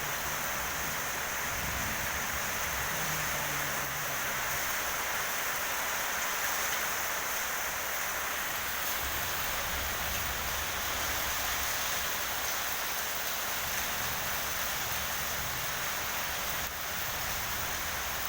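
Heavy rain falling steadily in a strong wind, an even rushing hiss with uneven low rumble beneath it.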